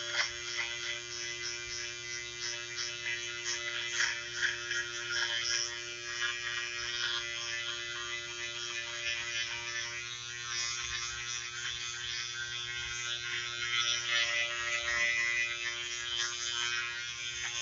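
Wahl GroomsMan Pro electric trimmer with its close-shaver attachment running steadily, a constant motor hum with a light irregular crackle as it goes over short facial hair.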